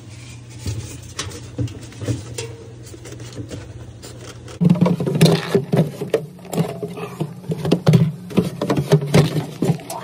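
Styrofoam and plastic freezer panels being handled and pushed into place: scraping, rubbing and small clicks, louder and busier after about four and a half seconds, over a steady low hum.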